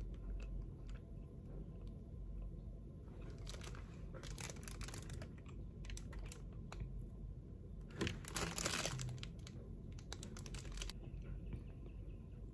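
A person chewing a soft dorayaki (Dora cake) with small scattered mouth clicks. The cake's plastic wrapper crinkles in short rustles, loudest about eight seconds in.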